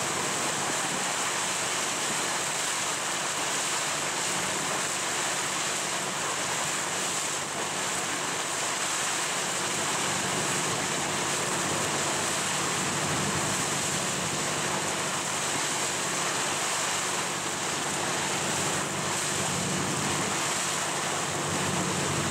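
Steady wind and water noise on a boat on open water, with a faint low hum underneath.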